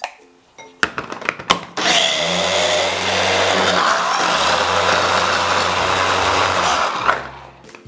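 A few knocks, then a Kenwood electric mini chopper runs steadily for about five seconds and stops, blending a wet chilli paste of dried chillies, dried shrimp, garlic and shallots. It is a second round of blending to break down chunks left after the first.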